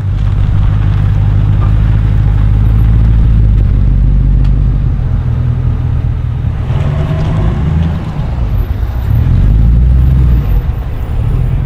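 Ex-police sedan's engine idling steadily at close range, a low rumble, shifting slightly about seven seconds in.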